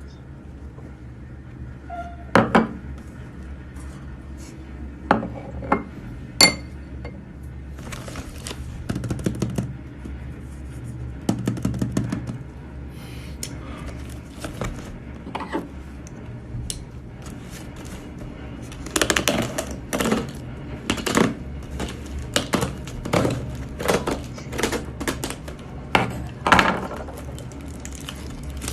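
Self-heating hotpot packaging and plastic containers being handled: scattered clacks, taps and knocks, clustering into quick runs of clatter in the second half.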